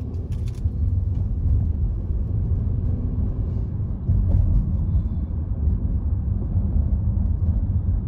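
Steady low rumble of a car driving, heard from inside the cabin: engine and road noise, a little louder from about four seconds in.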